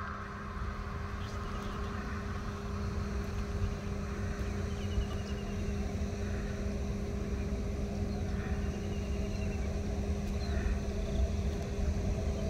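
Low, steady rumble of a distant Boeing 747 freighter's four jet engines on final approach, slowly growing louder.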